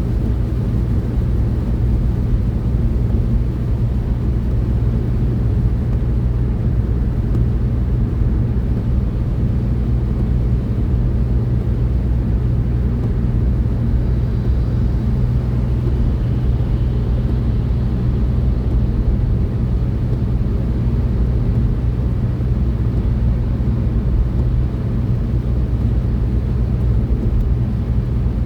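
Steady low rumble of a car's engine and tyre road noise inside the cabin, cruising at about 50 mph.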